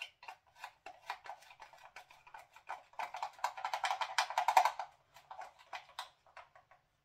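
Plastic spice shaker of dry gyros seasoning being handled and shaken: a run of quick, light plastic clicks and rattles, busiest about three to five seconds in.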